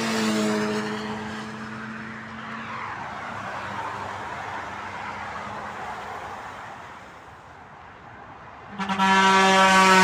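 A motorcycle passes close, its engine note dropping in pitch as it goes by, then steady motorway traffic. About nine seconds in, a truck's air horn gives one loud steady blast of about a second and a half, the loudest sound here.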